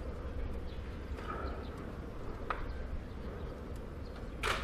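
Outdoor background noise: a steady low rumble with a few faint scattered clicks, and one short, sharper hiss-like noise near the end.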